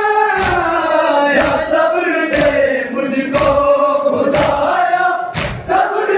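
Crowd of men chanting a noha (Shia lament) together, with loud unison slaps of matam, hands beating on chests, about once a second.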